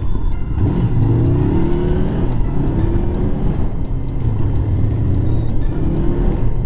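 Honda CBR400R's parallel-twin engine running on the road, its pitch rising a few times as it accelerates, with background music.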